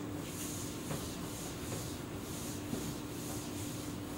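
Whiteboard eraser wiping across a whiteboard in quick back-and-forth strokes, about three a second. A steady low hum from the room runs underneath.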